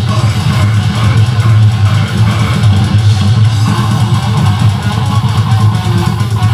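Death metal band playing live, loud, with distorted electric guitar and bass guitar.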